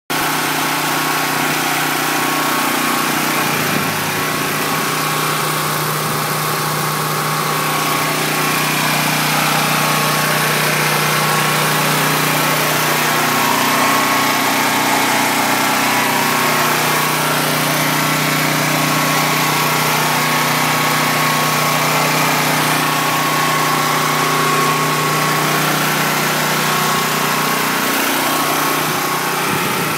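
A gasoline portable generator and an SUV's engine running steadily at idle, a constant mechanical hum with a few steady higher tones above it. The engine is idling while it takes in HHO gas for a carbon-cleaning treatment.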